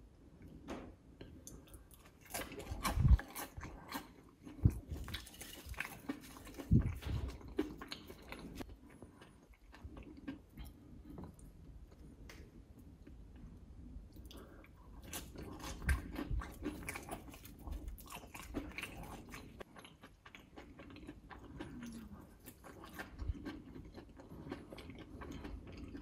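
A person biting and chewing crisp air-fried homemade potato fries, close to the microphone: irregular crunches in clusters, busiest in the first third and again just past the middle.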